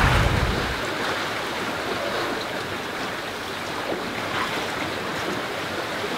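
Sea water rushing and splashing past the hull of a sailing yacht under way, a steady hiss. Wind buffets the microphone for about the first second.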